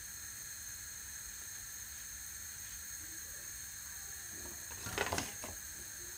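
Faint steady hiss, with a short burst of rustling and knocking about five seconds in.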